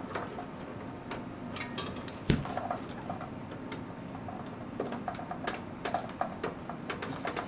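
Small clicks and taps of a power supply's 4-pin connector and cables being handled and pushed into an optical drive, with one louder knock a little over two seconds in.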